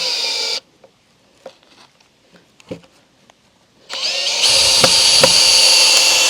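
Power drill boring into a wooden board, whining steadily. It stops about half a second in, a few light knocks follow, and it starts again about four seconds in.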